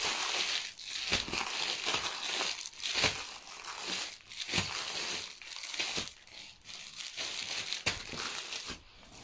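Plastic bags and wrapping crinkling and rustling in irregular surges as packed items are handled.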